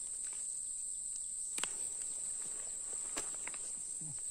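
Insects droning steadily at a high pitch, with a few faint clicks.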